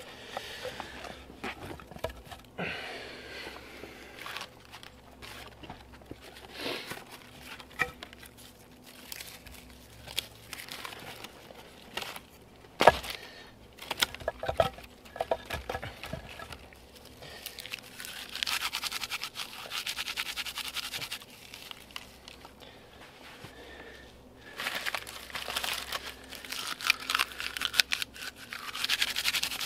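Dry birch bark being handled, torn and crumpled by hand: crackling and rustling with longer tearing stretches. Scattered sharp cracks run through it, the loudest about thirteen seconds in.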